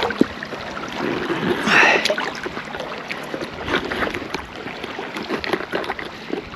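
Wind on the microphone and water noise, with scattered small clicks and knocks, and a brief brighter rush about a second and a half in.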